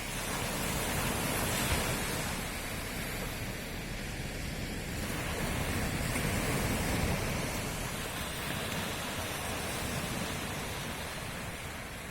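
Ocean waves washing onto a shore at night, a steady rush of surf that swells twice, once early and again about halfway through.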